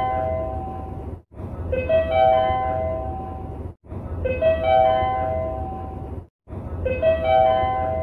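Train operation-information update chime: a quick run of four rising notes, looped about every two and a half seconds, three times. A low rumble of train running noise lies under each repeat and cuts out briefly between them.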